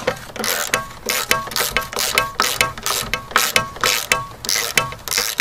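Socket ratchet wrench clicking as it is swung back and forth, about three strokes a second, turning a rusted nut on a corroded radiator bolt.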